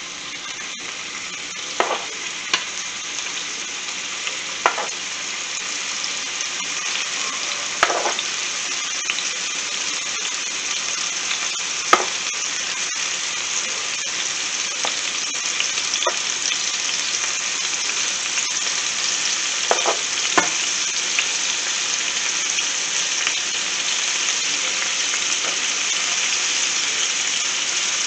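Cubed raw chicken sizzling in hot coconut oil in a skillet, the frying hiss building louder as more pieces go in. A few short clicks and taps as pieces are set into the pan with metal tongs.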